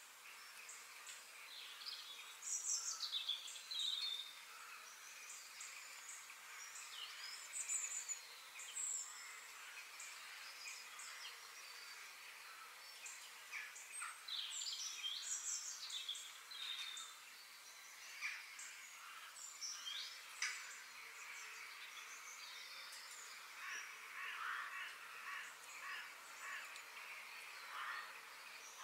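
Birds chirping and singing in many short, gliding calls over a faint steady hiss of outdoor background noise.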